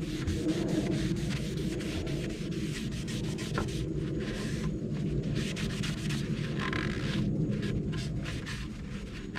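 Cloth rag rubbing wiping stain into a wooden surface, in repeated back-and-forth strokes.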